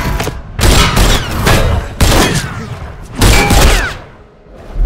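Added fight sound effects: a fast run of heavy punch and body-blow impacts with whooshes and metallic clangs of the shield ringing out, four or five big hits about a second apart, easing off briefly near the end.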